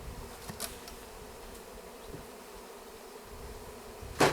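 Honeybees buzzing around an open hive, a steady hum. A sharp knock sounds about four seconds in.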